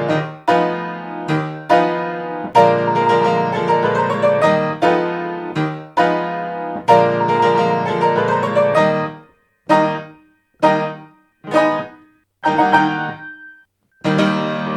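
Solo Toyo A-25 grand piano playing a Viennese waltz. About nine seconds in, the flowing playing breaks into four short separate chords with silences between them, then a brief pause before the playing picks up again near the end.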